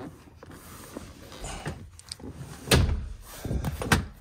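Jeep rear seat being handled and its back set upright: soft rustling and a few small clicks, then two heavy clunks, one about two-thirds of the way in and one near the end.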